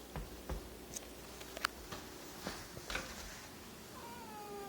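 A few faint clicks and taps, then near the end an adult cat's drawn-out yowl that slowly falls in pitch: a hostile warning aimed at a new kitten.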